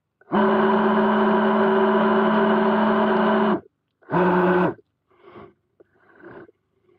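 Weddell seal calling: one long, steady call of about three seconds that stops abruptly, then a short call of the same pitch about four seconds in, followed by a few faint softer sounds.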